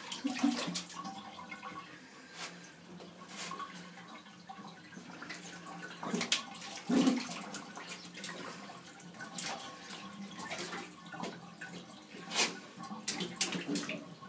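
A dachshund splashing in shallow water in a bathtub, pawing and nosing at the drain, in irregular splashes and knocks against the tub.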